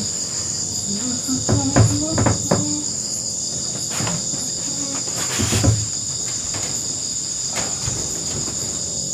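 Steady, high-pitched chorus of night crickets and other insects. Over it come a few knocks and thumps of bedding being moved around on a wooden plank floor, about two seconds in and again about five and a half seconds in.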